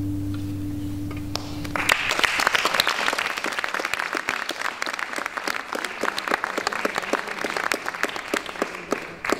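A classical guitar's final low notes ringing steadily, then an audience applauding for about seven seconds; the applause breaks off sharply just before the end.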